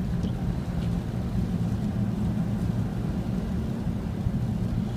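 Steady road and engine noise inside the cabin of a 2010 Ford Fusion driving slowly on a snow-covered road: an even low rumble and hum.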